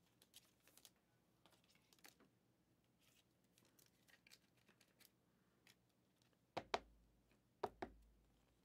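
Faint crinkling and rustling of a thin plastic card sleeve being handled, followed by two pairs of sharp knocks near the end.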